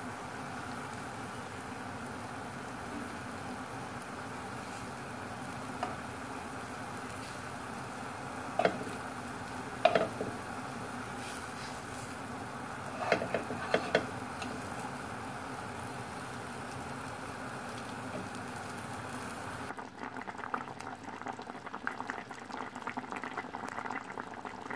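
Spicy fish curry boiling in a clay pot, a steady bubbling, with a few short knocks and plops about 9, 10 and 13 to 14 seconds in as pieces of fried fish are dropped in. Near the end the bubbling turns to a finer crackle.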